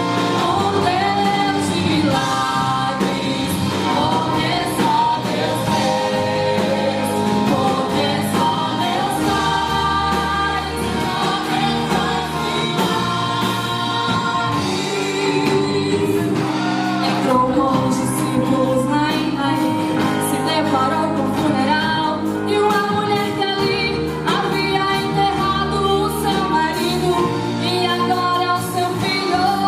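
Christian worship song: voices singing a melody over a sustained instrumental backing with a steady bass.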